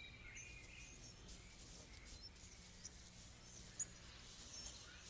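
Near silence with faint forest ambience: scattered small, high bird chirps and one brief faint tick about four seconds in.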